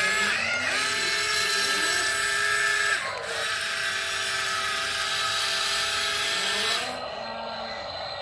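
Small electric motors and gearboxes of a toy remote-control excavator whining as the boom and bucket move. Two long runs with a short break about three seconds in, dropping to a fainter hum near the end.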